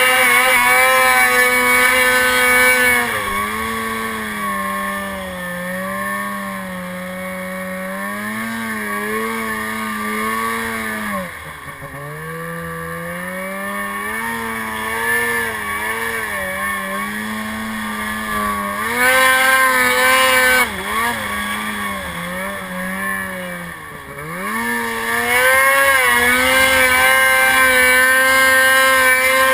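Polaris RMK mountain snowmobile's two-stroke engine running under throttle on a climb. Its pitch rises and falls as the throttle works, with brief easings about 11 seconds in and again about 24 seconds in before it pulls strongly again near the end.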